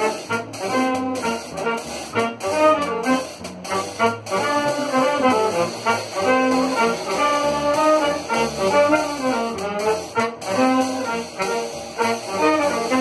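Small acoustic jazz combo playing live: saxophones and trumpet on the melody over upright bass and drums, with drum hits strongest in the first few seconds.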